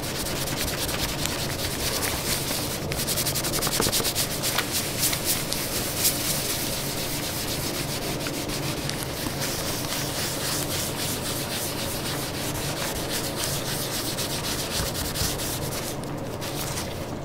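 A cloth buffing a dyed leather pocket in quick back-and-forth strokes, a steady brisk rubbing that eases off shortly before the end. It is polishing dried wax and leather balm to a shine.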